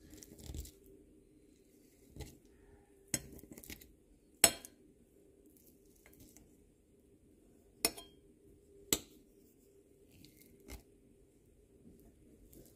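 Metal fork clinking and scraping against a ceramic plate while mashing boiled eggs, with several sharp clicks, the loudest about four and a half seconds in. A faint steady hum runs underneath.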